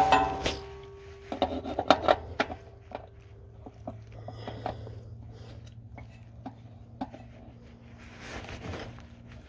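Metal parts and tools clinking and clattering during an oil change: a ringing metal clank at the start, then scattered clicks and knocks with some rubbing.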